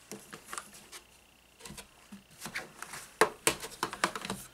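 Handling noise from quilting materials on a table: irregular clicks, taps and rustles as fabric and interfacing are moved about, the sharpest tap about three seconds in. A faint steady high tone sounds underneath and stops about three seconds in.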